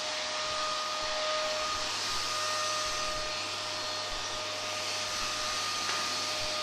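Eureka Forbes Trendy Nano canister vacuum cleaner running steadily: an even rush of air with a steady whine from its motor.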